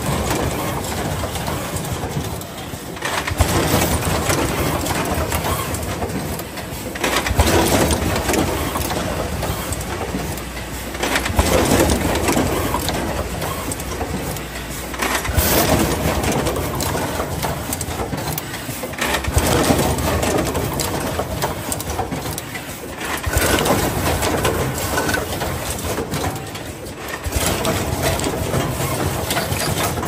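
Fully automatic plug crimping machine and its cable conveyor running, a steady mechanical clatter that swells about every four seconds as the machine cycles.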